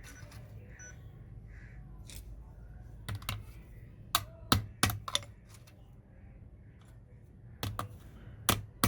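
About ten sharp, irregular taps and knocks from hand work on a small wooden bird cage, in two clusters: one about a third of the way in, the other near the end. A low steady hum runs underneath.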